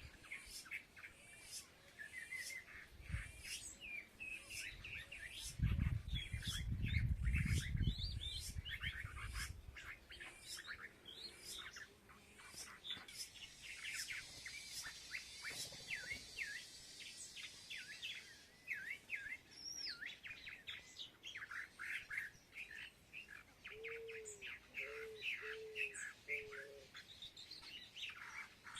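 Many small birds chirping and tweeting busily over each other at food. A low rumble a few seconds in is the loudest thing, and four short low notes come near the end.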